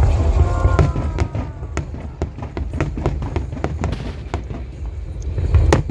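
Fireworks display: a rapid series of sharp crackling pops over a deep rumble of bursting shells. The rumble is heaviest at the start, and one louder crack comes near the end.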